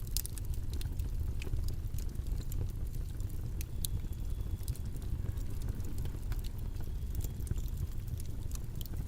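Steady low rumbling background noise, even and unbroken, with faint scattered ticks and clicks over it.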